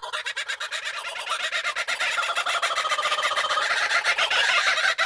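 Two laughing kookaburras calling together: their laughing call, a rapid, even run of cackling notes, about ten a second, growing louder toward the end.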